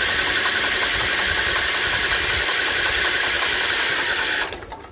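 Kohler 18 hp engine of an Ariens Zoom 1840 zero-turn mower cranked on its electric starter, spinning fast and even without catching, then stopping about four and a half seconds in. The easy, even spin is what the owner takes as a sign that the engine has almost no compression.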